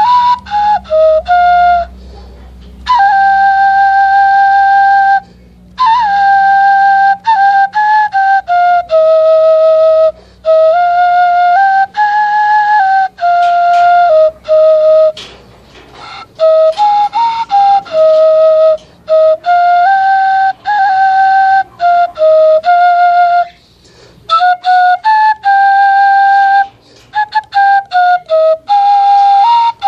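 Homemade bamboo native flute playing a slow melody of held notes that step up and down, with short pauses between phrases.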